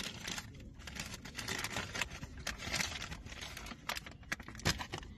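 White paper donut bag crinkling and rustling as it is handled, a dense run of irregular crackles.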